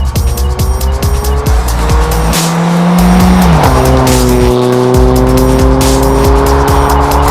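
Electronic dance music with heavy synth bass and a steady beat, over a Hyundai Veloster's four-cylinder engine and aftermarket stainless cat-back exhaust accelerating, its pitch rising steadily.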